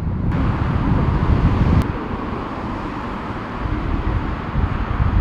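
Airbus A350 jet engines at takeoff power, a steady deep rumble heard from beside the runway. Wind buffets the microphone throughout.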